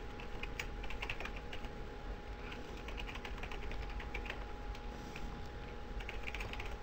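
Typing on a computer keyboard: runs of quick key clicks with short pauses between them, as an email address and then a password are entered.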